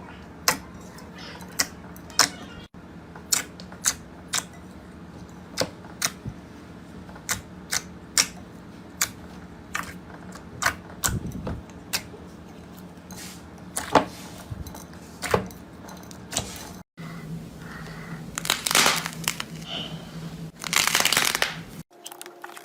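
Slime worked by hand, giving a string of sharp clicking pops about one or two a second, then two longer crackling stretches near the end.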